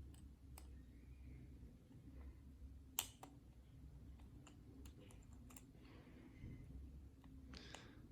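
Faint, scattered clicks of a lock pick and tension wrench working the pins of a Master Lock 410 padlock, with one sharper click about three seconds in.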